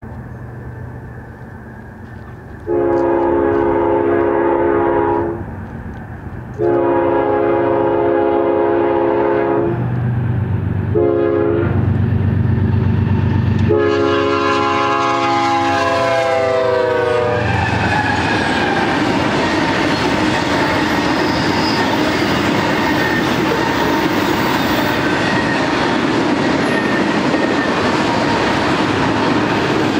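GE ES44AC diesel locomotives sound their air horn in the grade-crossing pattern, long, long, short, long, over a low engine rumble; the last blast drops in pitch as the locomotives pass. A steady rumble and clatter of auto-rack cars rolling by on the rails follows.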